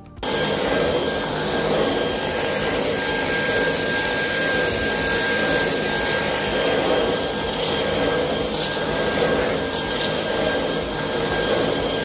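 Dyson V11 Extra cordless stick vacuum running steadily: an even rushing drone with a faint high motor whine.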